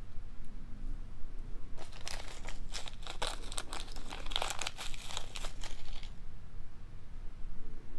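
Small clear plastic zip-top bead bag crinkling as fingers handle it, a crackly run of about four seconds starting about two seconds in.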